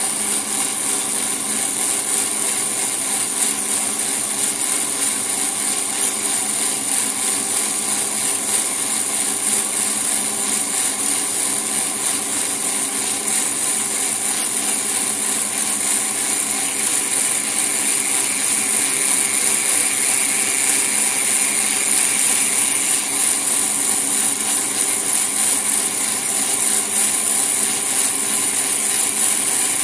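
Toroidal coil winding machine running steadily as it winds copper wire onto a small toroidal core. It gives a continuous high-pitched whine over a mechanical hum.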